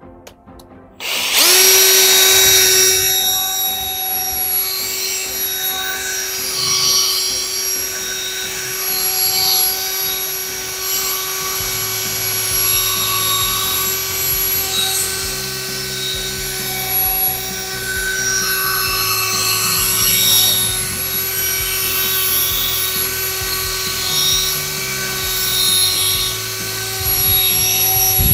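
Electric drill with a polishing pad running steadily, buffing compound into a plastic headlight lens. It starts about a second in, its pitch rising briefly as it spins up, then holds a steady whine over a shifting rubbing noise from the pad on the lens.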